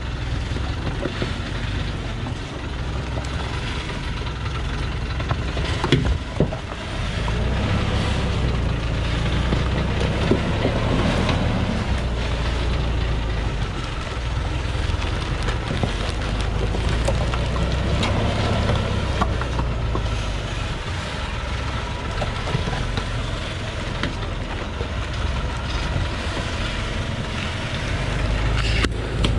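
Laden Thaco Foland diesel truck's engine running at low revs as it creeps down a rocky track, the note swelling a little twice, with a sharp knock about six seconds in.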